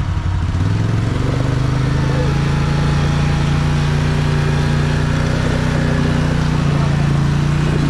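ATV engine rising in pitch over the first second or so, then holding steady revs.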